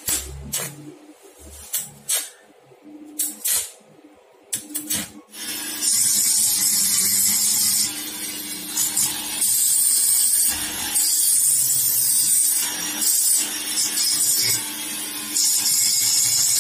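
A few scattered sharp clicks and knocks, then a handheld flexible-shaft rotary grinder starts about five seconds in. It grinds the aluminium crankshaft bearing seat of a motorcycle crankcase in bursts of a second or two, a high-pitched hissing grind over a steady hum, cutting back built-up weld so the bearing can fit.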